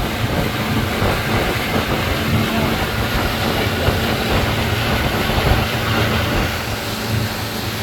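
Pontoon boat under way: its outboard motor running with a steady low hum beneath a continuous rush of wind and water noise.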